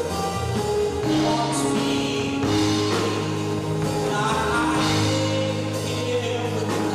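Live gospel worship music from a church praise team: singers holding sustained notes over a band with bass and drums.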